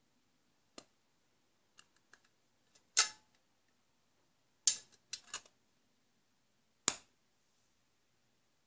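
A series of about eight sharp, irregular clicks at uneven intervals. The loudest come about three seconds in, near five seconds and near seven seconds.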